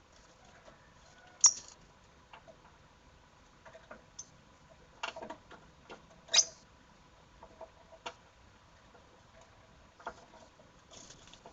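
Lovebirds giving short, shrill chirps at irregular intervals, with two louder ones about a second and a half in and about six seconds in, among faint clicks.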